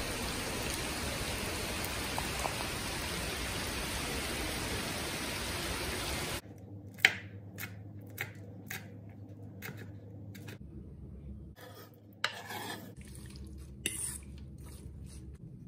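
Heavy rain hissing steadily for about six seconds, then a sudden change to a kitchen knife chopping green chilies and herbs on a wooden cutting board in a run of sharp single chops. Near the end a spoon clinks and scrapes in a steel bowl while marinating chicken is mixed.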